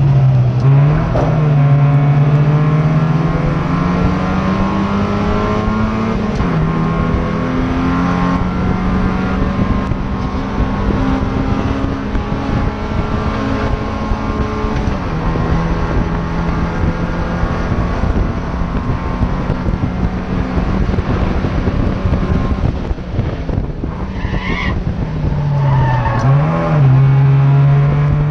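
Race car engine heard from inside the stripped cockpit, running hard at high revs. Its pitch climbs and then drops at a shift about six seconds in, holds steady over long stretches, and dips and jumps back up in quick downshift blips about 25 seconds in. The tyres squeal briefly at the same moment.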